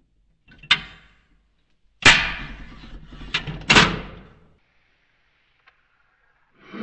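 Draft Top Pro tabletop can opener being worked on a drink can: a sharp click, then two loud clunks about two and three and a half seconds in as the lever is pulled round and the blade cuts out the lid, each dying away quickly.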